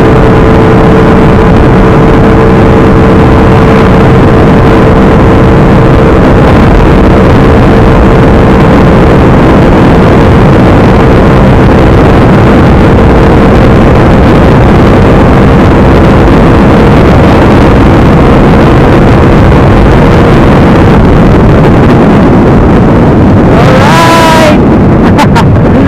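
Motorcycle fitted with a loud aftermarket 'chicken pipe' exhaust, running hard at steady high speed, its engine note holding one pitch and easing slightly near the end, with wind on the microphone.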